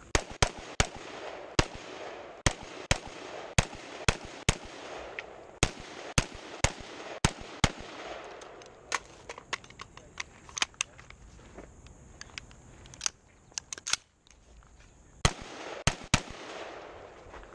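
AR-15-style rifle fired over and over in aimed strings of sharp shots, often about half a second apart, with a pause of a second or so about fourteen seconds in.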